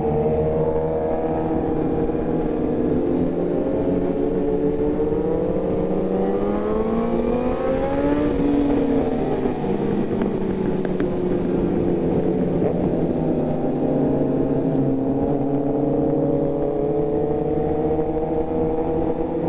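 Yamaha FZ1's inline-four engine running under way, its pitch climbing over a few seconds as the bike accelerates, dropping back, then climbing slowly again near the end.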